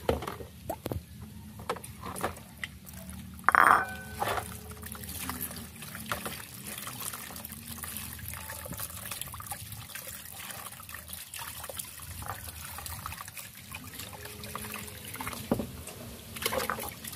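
Water sloshing and trickling as pig offal is rubbed with salt and rinsed in a basin, with small knocks from handling. A brief loud pitched sound rings out about three and a half seconds in.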